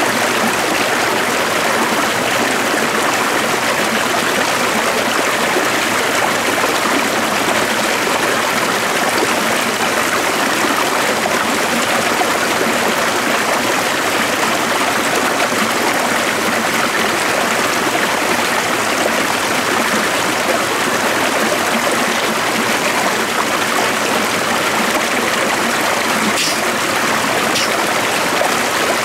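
Stream water running, a steady rushing and trickling.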